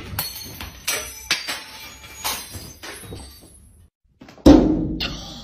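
A run of knocks and clatters, then one loud, heavy thud about four and a half seconds in that dies away over the next second.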